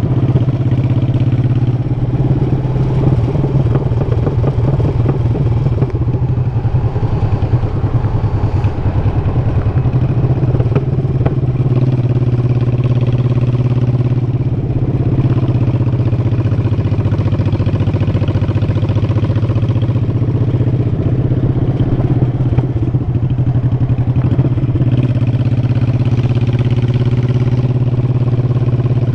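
Motorcycle V-twin engine running steadily under way, heard from the bike itself, likely the rider's Honda Shadow Sabre 1100, with a steady low drone throughout.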